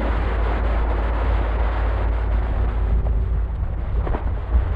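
Wind buffeting the camera microphone aboard a sailing yacht under way: a steady heavy low rumble under a rushing hiss.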